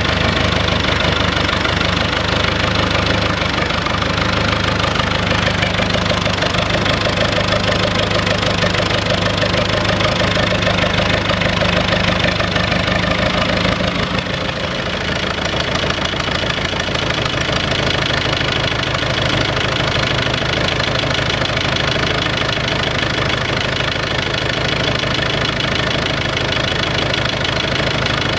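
UTB-Fiat 445 DT tractor's diesel engine idling steadily with a knocking diesel clatter, still cold shortly after a start in freezing weather. Its tone shifts slightly about halfway through.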